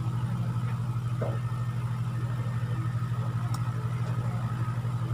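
Steady low motor hum with a fast, regular pulsing, and a brief click about three and a half seconds in.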